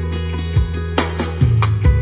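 Background music: a strummed guitar tune over a steady bass line and beat.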